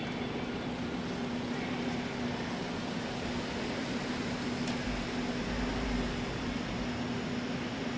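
A steady mechanical hum with one low steady tone, and a deeper rumble that swells briefly about five seconds in.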